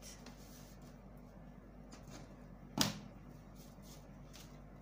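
Quiet rubbing and handling of pattern paper while a line is drawn along a curve ruler, with one sharp knock nearly three seconds in.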